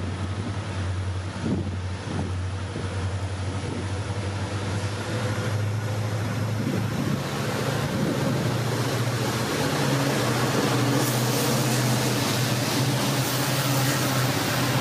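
Twin WDG4 diesel-electric locomotives with two-stroke EMD engines running as they approach and pass, a steady low engine drone that rises in pitch about halfway through. Wheel and rail noise builds as the locomotives come alongside near the end.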